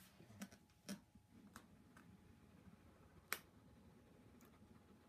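Faint, scattered taps and clicks of cardboard packaging being handled as the inner box is worked out of its tight outer sleeve, with one sharper click about three seconds in.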